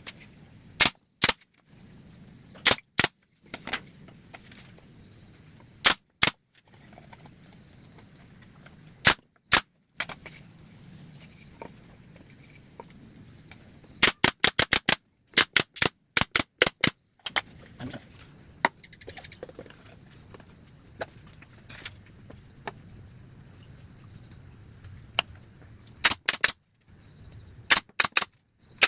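Pallet-wood boards being nailed: loud, sharp strikes, some single and some in quick runs of several a second, over a steady high chirring of insects.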